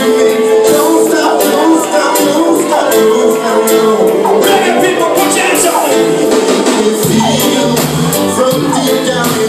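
Live reggae band playing loud, with singing, drums and a falling note that repeats about every second and a half. A deep bass line comes in about seven seconds in.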